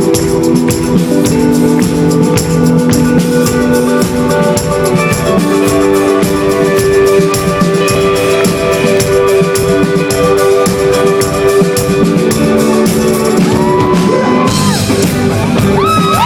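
Rock band playing live: a steady drum beat under sustained guitar chords, with a held vocal or guitar note rising in near the end.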